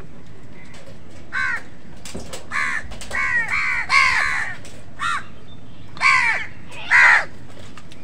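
House crows cawing: a run of about eight harsh caws, some overlapping in the middle, with the loudest near the middle and near the end.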